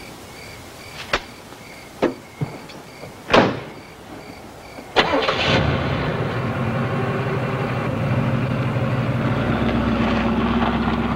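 Crickets chirping behind a few clicks of a car door and a door slam about three and a half seconds in; about five seconds in a car engine starts and then runs steadily as the car pulls away.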